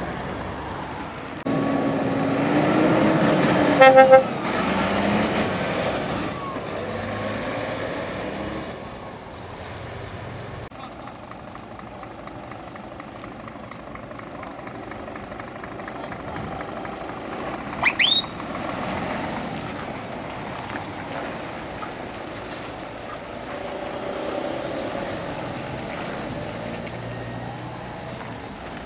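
Heavy lorries driving past with diesel engines running and pulling away. A truck horn gives two short toots about four seconds in, and another brief, higher toot comes at about eighteen seconds.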